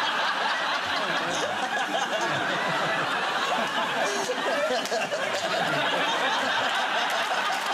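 Studio audience laughing, many voices together, steady and sustained.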